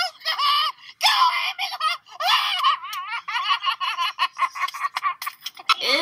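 A young child squealing and laughing in high, shrill bursts, breaking into a fast run of short laughs in the second half.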